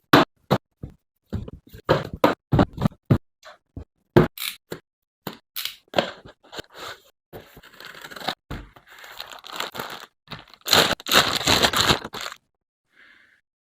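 A boxed figure's cardboard and plastic packaging being opened by hand: a run of sharp rips, knocks and scrapes, then a few seconds of denser tearing and crinkling that stops about twelve seconds in.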